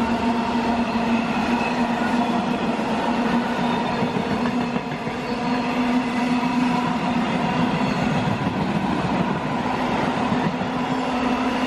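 Freight train of long covered wagons rolling past at speed: a steady rumble and wheel noise on the rails with a continuous hum under it.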